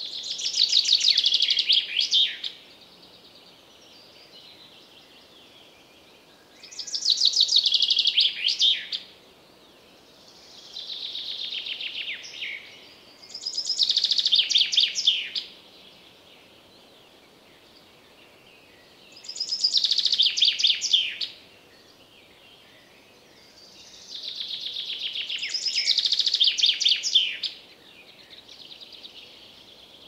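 Common chaffinch singing: six song phrases of about two seconds each, every one a rapid run of notes ending in a flourish, coming every few seconds, one of them fainter than the rest. Other birds call faintly between the phrases.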